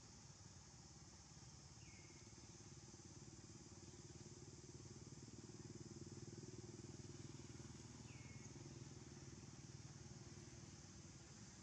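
Near silence: the faint low rumble of a distant passing vehicle engine swells about halfway through, over a steady high hiss, with two short faint chirps.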